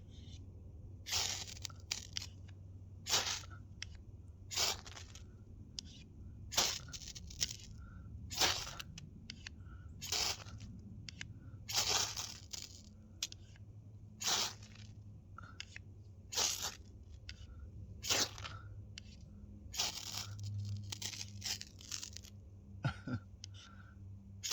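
A knife blade scraping in short, sharp strokes, about a dozen of them, roughly one every one and a half to two seconds, over a steady low hum.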